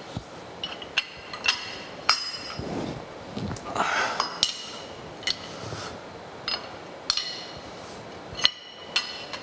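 Steel wrench working the overarm clamp nuts on a Kearney & Trecker 3H horizontal milling machine, clamping the overarm supports tight. It makes a string of irregular sharp metallic clinks, each with a short high ring.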